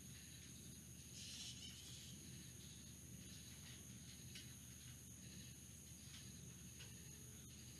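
Near silence: faint outdoor night ambience, a steady high hiss with a few scattered faint ticks and a short swell of noise about a second in.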